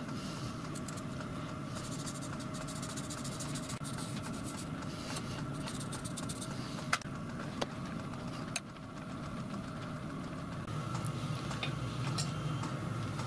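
A workshop machine motor running with a steady hum, with a few sharp metallic clicks and taps about seven to nine seconds in.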